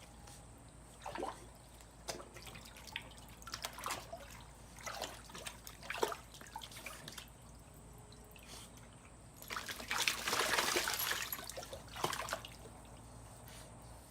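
Water splashing and dripping in a shallow dog bath pool: scattered small splashes, then a longer, louder splash about ten seconds in.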